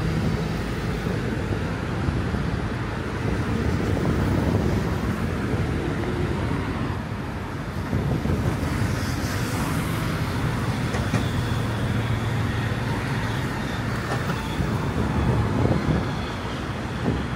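Steady road traffic noise: vehicles running and passing, with a low engine hum underneath.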